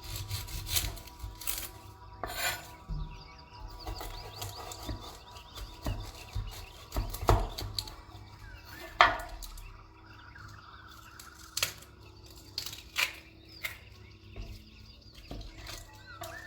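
Irregular knocks and clinks of kitchen work: utensils and dishes handled on a wooden board while food is prepared, the sharpest knock about nine seconds in.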